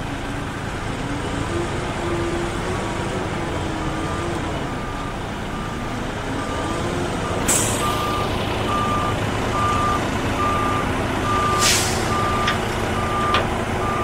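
Concrete mixer truck backing up: its reversing alarm beeps steadily, a little over once a second and louder in the second half, over the running diesel engine. Two short hisses of air break in, about halfway and near the end.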